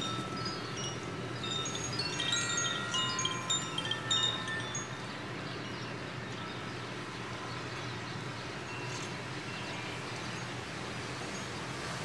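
Koshi wind chimes, bamboo tubes with tuned metal rods inside, tinkling as the wind swings their clappers. The notes are busiest in the first five seconds and thin out after that, over a steady rush of wind.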